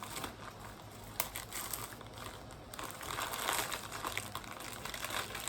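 A small package being cut open with a knife and unwrapped: the packaging crinkling and tearing, with a couple of sharp clicks in the first second and louder rustling about three to four and a half seconds in.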